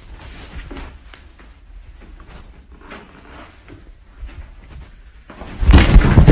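Handling rustle and small knocks on a phone's microphone, then, about five and a half seconds in, a loud tumbling crash as a person falls down a flight of stairs while holding the phone.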